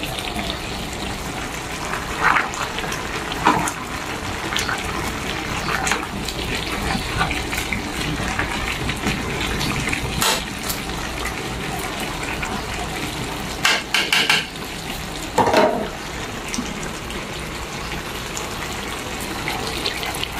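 Ginataang langka (jackfruit and shrimp in coconut milk) simmering in a metal wok with a steady hiss, while a ladle clinks and scrapes against the wok several times.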